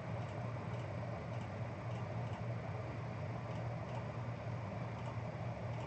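Steady low room hum with faint, scattered clicks of a computer keyboard and mouse.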